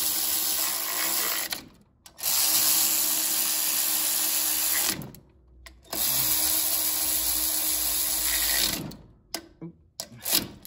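Cordless power driver with an 8 mm socket running in blower-housing bolts on a small engine, spinning in three steady runs with short pauses between them, followed by a few light clicks near the end.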